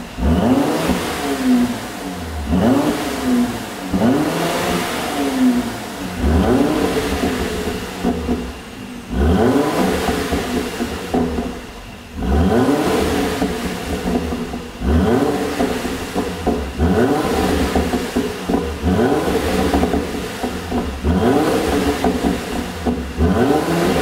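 Mercedes-AMG C43's twin-turbo 3.0-litre V6 revved again and again through a tuned exhaust, blipped every second or two. Between blips the revs fall back with pops and crackles from the tailpipes.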